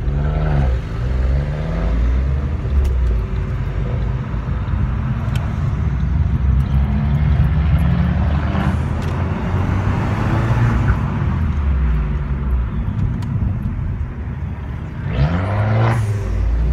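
Car engine and road noise heard from inside a moving car's cabin, the engine pitch rising and falling as it accelerates and changes gear, most clearly near the end.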